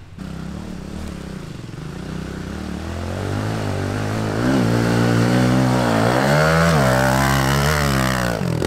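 Small single-cylinder pit bike engine revving up and down in repeated surges, growing louder from about three seconds in as the bike comes up to and climbs a dirt jump. The rider is on only half throttle, too little to carry the bike over the jump.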